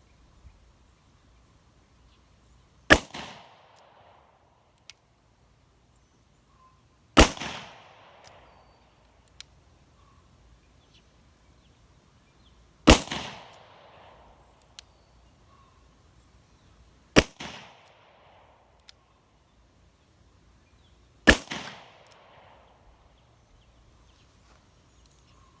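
Taurus Judge revolver firing .45 Long Colt, five single shots spaced about four to five seconds apart, each followed by a short echo, with faint clicks in the gaps between shots.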